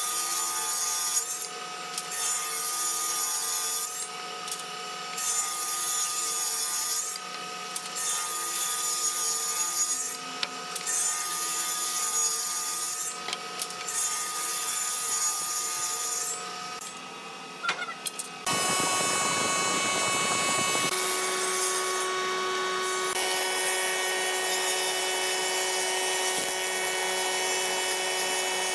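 Circular table saw running with a steady motor tone, cutting wood in stretches that stop and start every second or two as boards are fed through. About two-thirds of the way through, the sound changes abruptly to a wood planing machine running steadily.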